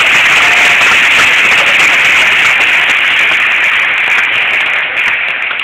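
Crowd applauding loudly in a dense, steady wash of clapping, tapering off near the end.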